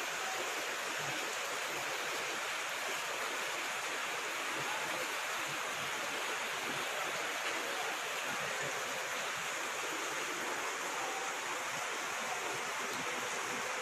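Floodwater rushing steadily through a submerged street, a constant, unbroken hiss of moving water.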